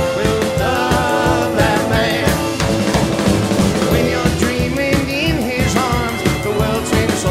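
Background music: a song with singing over a steady drum beat.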